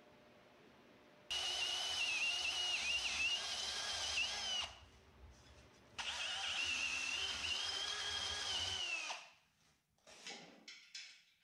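Power drill boring through steel C-channel held in a bench vise: two runs of about three seconds each, the motor's whine wavering as the bit bites, then a few short bursts near the end.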